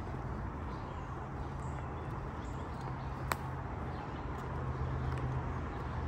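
Footsteps on a paved asphalt path while walking, over a steady low hum and a background hiss, with one sharp click about three seconds in.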